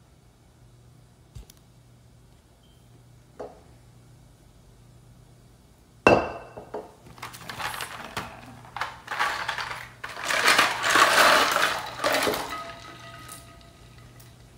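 Kitchen clatter of pots, dishes and utensils: a sharp knock about six seconds in, then irregular knocking, clinking and rustling for several seconds, after a quiet stretch with a faint steady hum.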